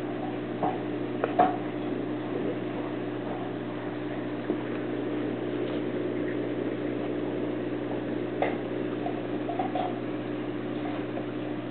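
Aquarium aeration: streams of air bubbles from an air stone and sponge filter bubbling and splashing at the water's surface over a steady low hum, with a few short pops about a second in and again near eight and a half seconds.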